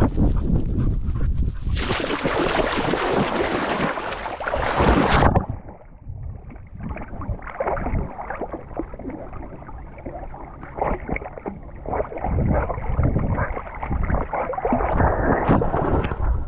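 Cocker spaniel splashing into a river and swimming, heard from a camera on its back: a loud rush of splashing water from about two seconds in. About five seconds in the sound turns suddenly dull and muffled as the dog swims with water sloshing around the camera, and it opens up again near the end as the dog climbs out onto the grassy bank.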